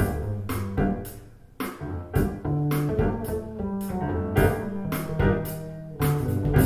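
Instrumental music with sustained pitched notes and regular sharp drum hits, played back through KEF LS50 Black Edition bookshelf speakers.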